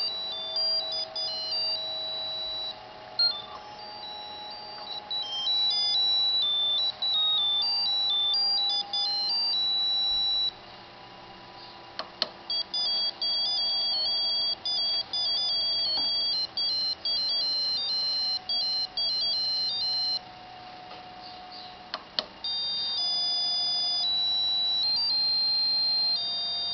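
ATmega8 microcontroller playing RTTTL ringtones as electronic beeping melodies, one note at a time, stepping quickly from pitch to pitch. The tune stops twice for about two seconds, and each time a short click comes just before the next ringtone starts.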